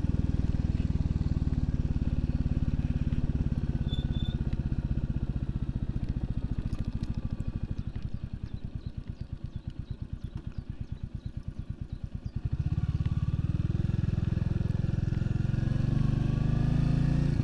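Royal Enfield Classic 350's single-cylinder engine running on a steep descent. Partway through, the throttle is closed and the engine drops to a quieter, slow beat of separate firing pulses. About two thirds of the way in it pulls again, louder, with a rising note.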